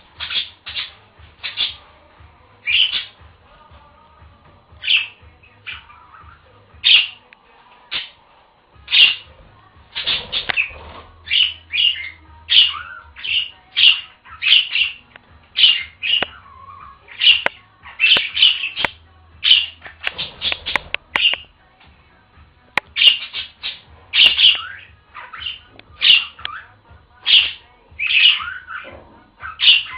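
Pet budgerigars calling in a run of short, sharp chirps and squawks, one or two a second, busier in the second half.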